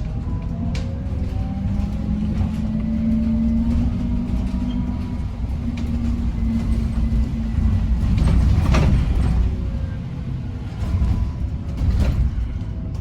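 Bus in motion heard on board: a low running rumble with a steady hum and whines gliding up in pitch near the start, broken by several sharp knocks and rattles, the loudest about nine seconds in and again near the end.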